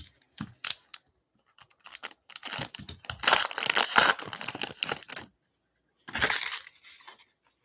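Foil wrapper of a trading-card pack being torn open and crinkled by hand. A few short crackles come first, then about three seconds of continuous tearing and crinkling, and another burst of crinkling near the end.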